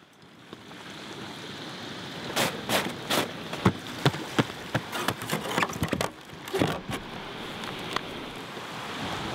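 Clicks and knocks of sea kayak gear being handled, with a rubber hatch cover pressed down onto a deck hatch, over a steady wash of surf.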